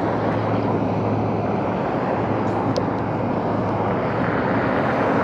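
Road traffic passing on a busy street: a steady rush of car and tyre noise with a low engine hum underneath.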